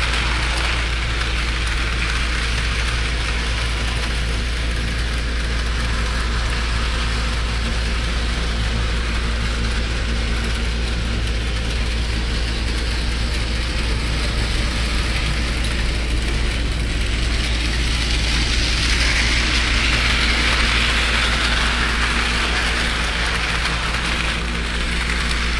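Bachmann Edward model train locomotive running on its track: a steady whirring running noise from its motor and wheels on the rails, over a constant low hum. The running noise grows louder for a few seconds about two-thirds of the way through.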